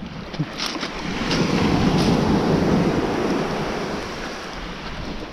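A small wave washing up onto a pebble-and-sand beach, swelling about a second in and fading away toward the end. A few clicks of footsteps on the pebbles in the first second or so.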